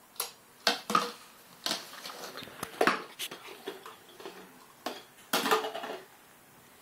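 Clear plastic cups clattering and knocking on a tile floor as a toddler handles and knocks them over, in irregular taps with a longer clatter about five and a half seconds in.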